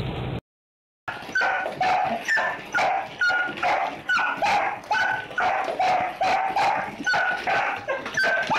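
A dog barking over and over, about two short, pitched barks a second, starting about a second in.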